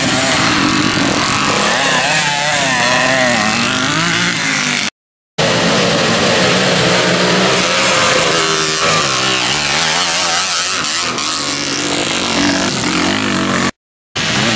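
Off-road motocross motorcycle engines revving, the pitch rising and falling as the bikes accelerate and ease off around the course. The sound drops out twice for about half a second.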